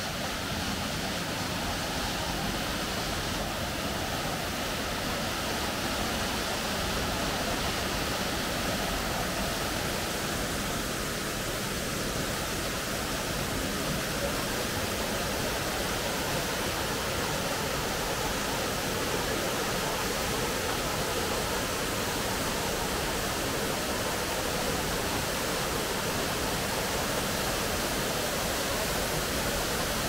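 Waterfall: the steady, even noise of falling water, with no break or change.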